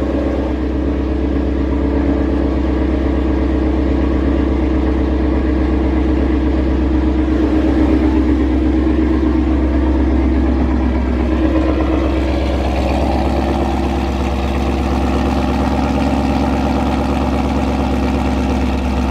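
Ford Mustang GT's Coyote 5.0 V8 idling steadily after a fresh tune, with no misfire or popping to be heard: the misfire is cured, which the owner puts down to the tune not giving enough fuel.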